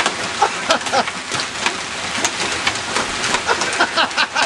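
Hailstones and heavy rain pelting down, a dense rattle of many sharp impacts on hard surfaces over a steady hiss.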